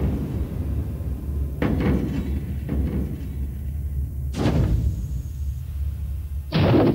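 Game-show stage trapdoor dropping open under a contestant who falls through it: several heavy slams and thuds, the last and loudest near the end, over a low steady drone.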